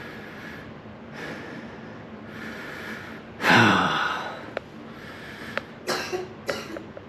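A person breathing in and out, then sneezing loudly once about three and a half seconds in, the sneeze's voice falling in pitch.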